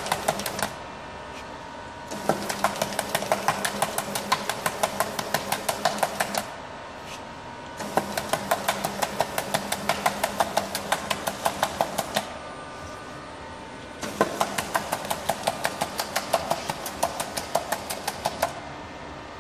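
Streamfeeder friction feeder running in runs of rapid, evenly spaced clicks, several a second, each run lasting about four seconds, with short pauses between runs and a steady motor hum throughout. Each run is the feeder dispensing a counted batch of products into the box.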